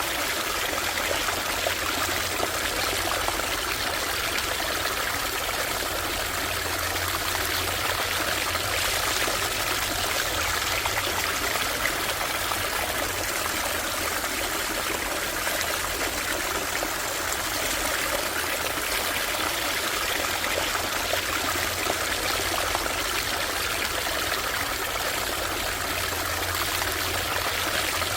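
Shallow stream running steadily over stones, a continuous babbling rush of water.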